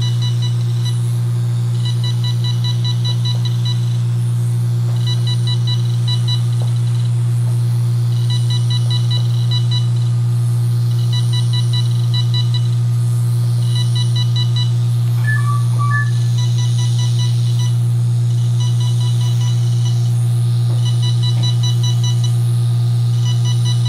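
Nordlys FRAX 1940 fractional laser handpiece beeping rapidly in short runs, about one run every two seconds, as it fires pulses while being rolled over the skin. Under the beeps runs a loud, steady low hum, and a different pair of beeps sounds once about fifteen seconds in.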